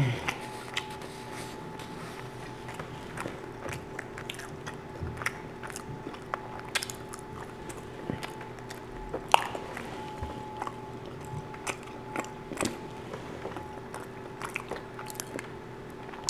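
Close-miked chewing and biting of soft baked pull-apart bread with chicken and bacon: wet mouth sounds and irregular small crunches and clicks, over a steady faint electrical hum.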